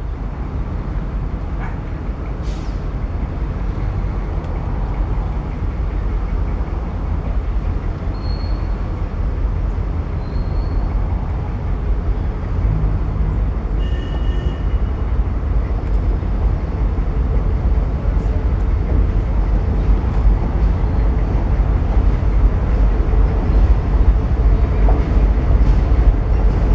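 Diesel engines of a four-unit lash-up of EMD G22UB and G12 locomotives running as a loaded freight train approaches, a steady low rumble that grows slowly louder.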